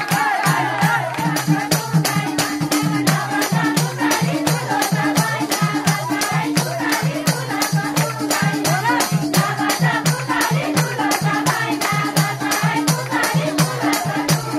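Nepali Ratauli folk music played live: a tambourine-type frame drum jingling and a low drum keeping a quick, steady beat, hands clapping along, and women singing.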